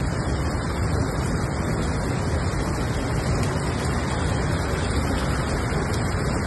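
Steady rushing noise of wind and rain in a hailstorm, with a deep rumble.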